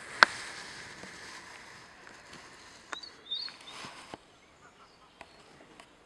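Outdoor garden ambience with a sharp click about a quarter of a second in. A few faint, high bird chirps come about three seconds in.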